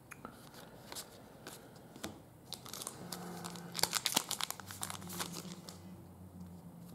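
Crinkling and tearing of a plastic trading-card pack wrapper being opened by hand, a dense run of crackles in the middle.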